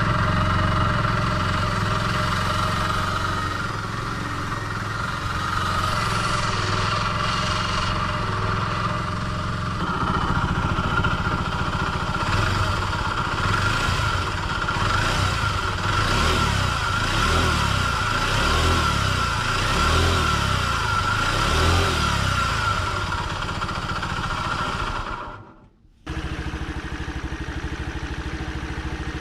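Honda Dio AF62 scooter's 50cc four-stroke single running with no oil in it, giving off the abnormal noise of a worn-out engine that is due for an overhaul. The sound cuts out briefly near the end, then resumes.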